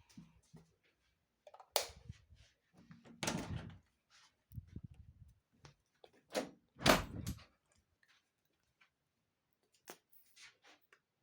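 Stomach growling: irregular low gurgles and rumbles, broken by several sharp thumps, the loudest about seven seconds in.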